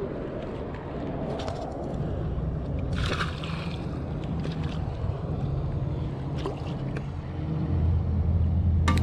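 Wind rumbling on the microphone by open water, strongest near the end. A brief splash comes about three seconds in as a red drum (redfish) is let go back into the shallows.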